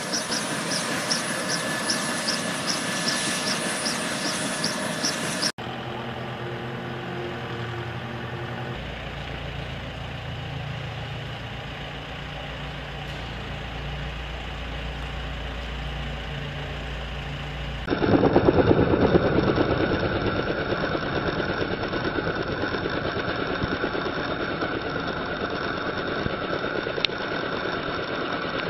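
Kaman K-MAX helicopter's turboshaft engine and intermeshing rotors running. The audio is made of several cut-together sections: first a steady whine with a regular pulsing about three times a second, then a quieter, lower running, and from about two-thirds of the way in a much louder, steady run.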